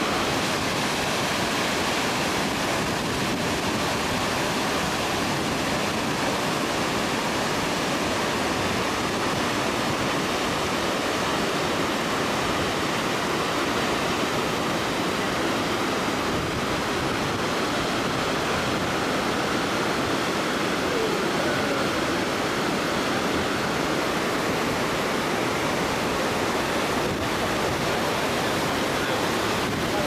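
Kegon Falls, a waterfall almost 100 metres tall, heard as a steady, even rush of falling water with no pauses or changes.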